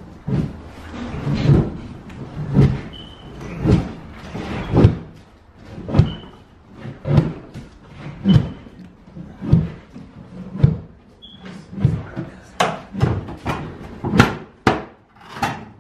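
Repeated knocks and thuds of demolition work inside a house, about one blow a second, coming faster and sharper near the end.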